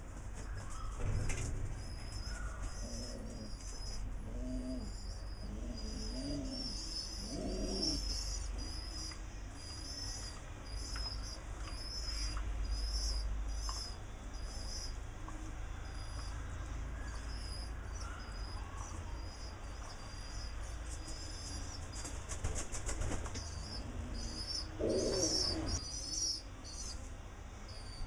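Pigeons flapping their wings, with louder bursts about a second in and again near the end, and low cooing calls in between. A steady run of short, high chirps goes on underneath.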